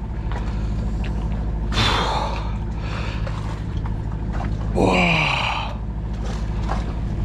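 Steady low drone of the mothership's machinery running under the deck. A man lets out a short cry about two seconds in, and a louder one with a falling pitch around five seconds.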